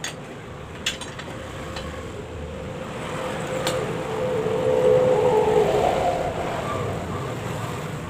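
A motor vehicle's engine, heard passing by: a steady tone swells to its loudest about halfway through and then fades. A few sharp clicks fall in the first half.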